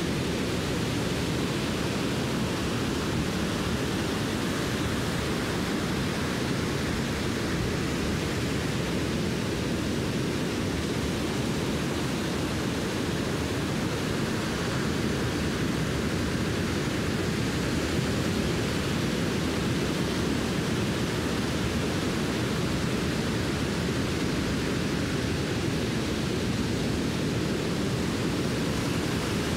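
Steady, even noise of surf breaking on the beach mixed with wind, with no distinct events.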